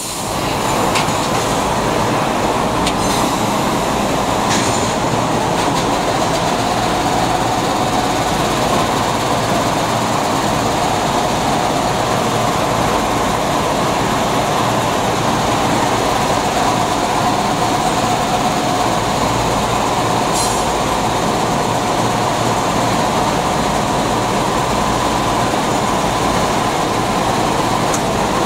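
Industrial machinery running with a steady, even rumble and hiss, a faint hum tone riding on top and a few brief clicks.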